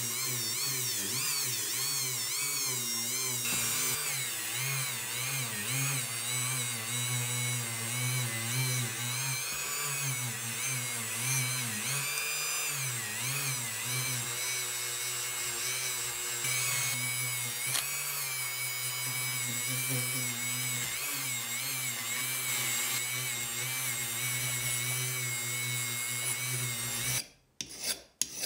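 Handheld rotary tool with a small bit running against a metal boot part, its motor whine wavering in pitch as it loads and unloads. Near the end it cuts off suddenly and a hand file scrapes across the metal in a few quick strokes.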